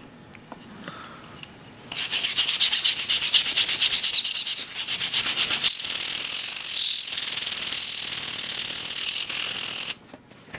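Bronze bristle brush scrubbing back and forth on the oiled knurling of a rusty steel barbell, working off surface rust. After about two quiet seconds come fast, loud scrubbing strokes. These turn steadier and a little quieter about halfway through, then stop abruptly near the end.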